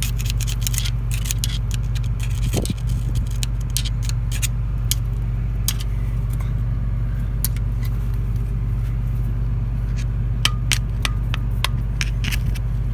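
Excavator's diesel engine idling steadily, under scattered light metallic clicks and scrapes as the mulcher rotor's teeth are handled and a tool is poked into a tooth's bolt hole. The clicks come thickest at the start and again near the end.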